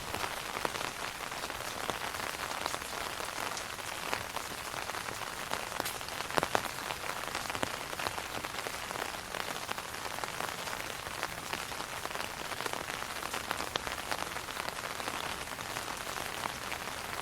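Steady rain falling on an umbrella, a dense even hiss with many separate drop hits, one drop landing louder about six and a half seconds in.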